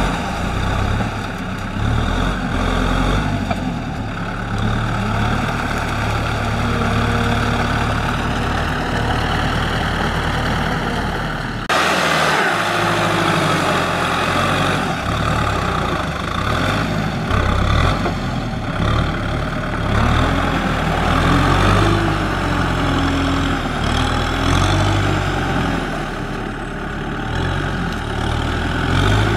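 Kubota M6040SU tractor's diesel engine running under load as it drives a rear rotary tiller through flooded paddy mud, its pitch rising and falling a little. The sound changes abruptly about twelve seconds in.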